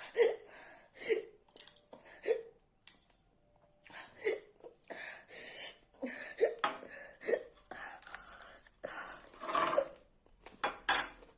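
A woman hiccuping again and again, about eight short sharp hiccups at uneven gaps of one to two seconds, with longer hissy breaths between some of them. The hiccups are brought on by eating very hot chillies.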